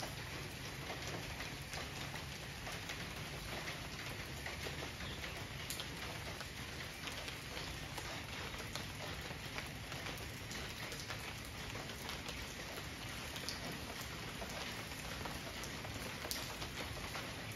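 Steady rain falling on garden foliage: an even hiss dotted with many small drop ticks.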